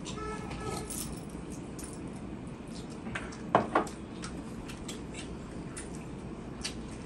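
Eating sounds at a table: hands working rice on large steel plates, with many small metallic clicks and taps. A short, loud double sound comes about halfway through.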